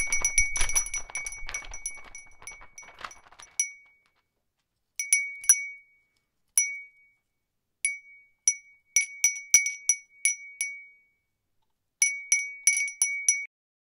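A small bright chime, glassy or metallic, struck over and over at one high pitch, each strike ringing briefly. A quick flurry thins out over the first four seconds, then come scattered single strikes and short quick runs, the last run stopping shortly before the end.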